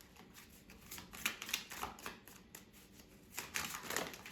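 Tarot cards being shuffled and handled, a run of crisp irregular riffling and slapping clicks that comes in two busier flurries, about a second in and again near the end.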